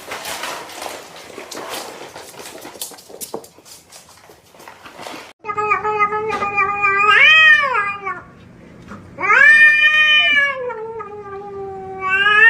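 A cat yowling in three long drawn-out calls that waver up and down in pitch. It is preceded by a few seconds of rustling, crackling noise that stops abruptly.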